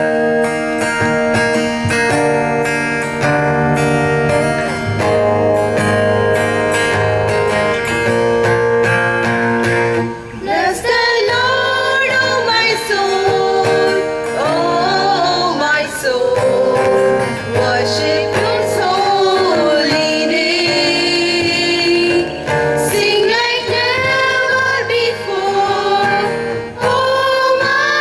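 A choir singing a prayer song with guitar accompaniment: about ten seconds of instrumental introduction with chords strummed, then voices come in and sing a melody over the guitar.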